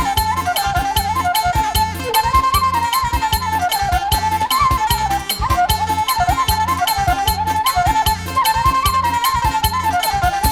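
Traditional-style music: a high, flute-like wind melody with ornamented runs over a steady drum beat and bass.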